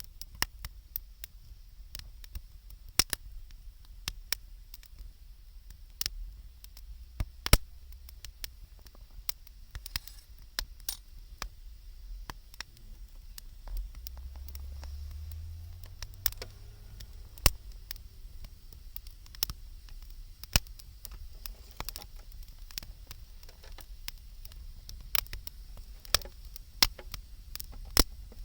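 Wood fire crackling, with irregular sharp pops of burning wood, a few much louder than the rest, and a brief low rumble about halfway through.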